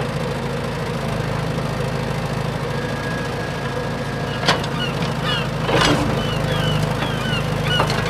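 Toy RC excavator's small electric motors whirring steadily as its arm works the sand. There are a couple of sharp clicks. From about halfway, short high chirps repeat roughly twice a second.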